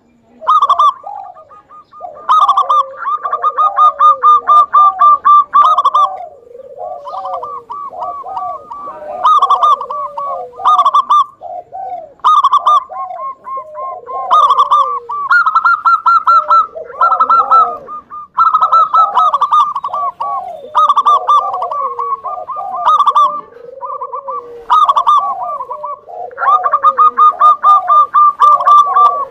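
Zebra dove (perkutut) singing its cooing song: rapid runs of short staccato coos, repeated in bouts with brief gaps.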